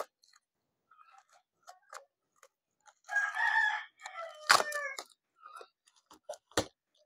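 A rooster crows once, about three seconds in, one call of about two seconds. Scattered taps and knocks come from a cardboard box being handled, the sharpest two near the middle and near the end.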